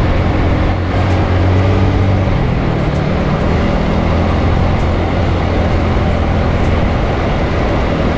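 Yamaha Mio Sporty scooter's single-cylinder four-stroke engine running steadily under way, with wind rushing over the microphone. The engine note changes about two and a half seconds in.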